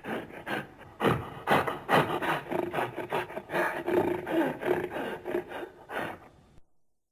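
Film creature sound effect: a rapid, uneven series of rough grunts and growls, about two or three a second, that cuts off sharply near the end.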